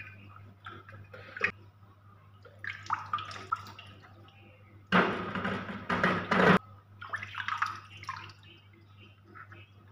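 Water splashing and dripping in an air cooler's water tank as hands move a clay pot and lift the small submersible pump out, water running off it. A louder burst of splashing about five seconds in lasts under two seconds.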